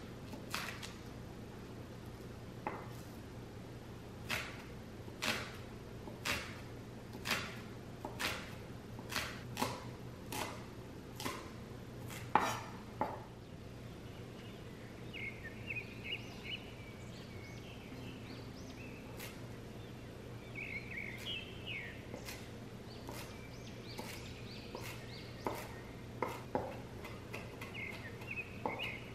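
Chef's knife slicing green onions on a wooden cutting board, sharp cuts about one a second for the first dozen seconds. Faint high chirping fills the middle stretch, and a few quicker knife cuts on the board come near the end.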